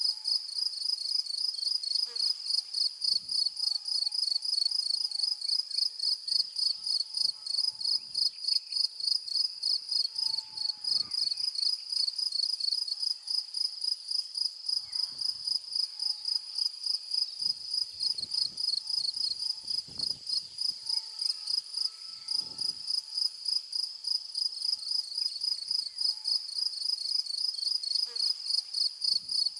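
Insects chirping in the grass, a steady high-pitched song repeated in quick pulses, about three a second. A few faint low thumps come and go beneath it.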